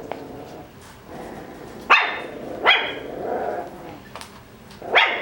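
Coton de Tulear puppy barking at a crinkly plastic water bottle, with three sharp, high yaps about two seconds in, just under three seconds in, and near the end.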